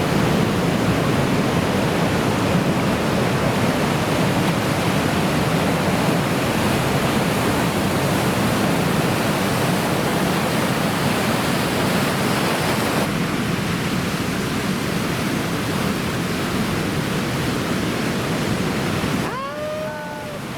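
Steady roar of heavy typhoon surf, waves breaking in a dense continuous wash. The tone shifts about two-thirds of the way through, and near the end the roar dips and a few short rising-and-falling tones are heard.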